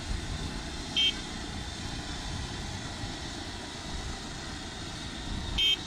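Turbine engine and main rotor of a light single-engine helicopter, an AS350 Écureuil type, running steadily on the ground with the rotor turning. Two short high chirps are heard, one about a second in and one near the end.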